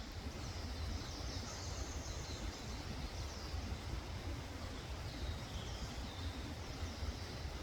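High, short chirping calls repeating over a steady low rumble.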